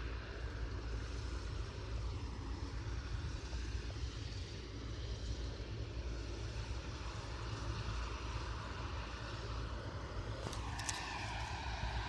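Combine harvesters cutting rapeseed, heard from a distance as a steady mechanical drone with a heavy low rumble. Near the end a few short clicks come in and the pitch of the drone shifts.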